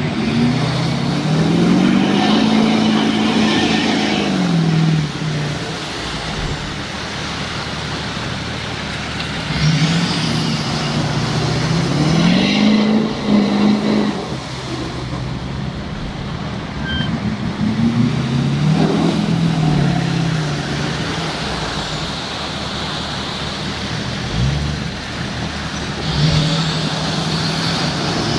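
Hummer H2 engine revving up and down in four separate swells, each rise and fall lasting a few seconds, as the truck ploughs through deep mud and water. Its tyres churn and throw mud under the engine note.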